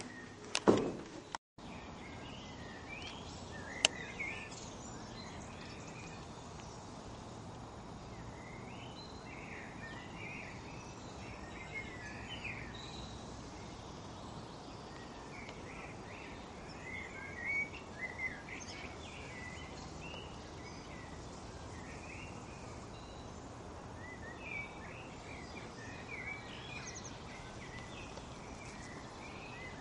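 Small birds chirping and singing on and off over a steady outdoor hiss. A couple of sharp clicks stand out near the start, just before a brief gap in the sound.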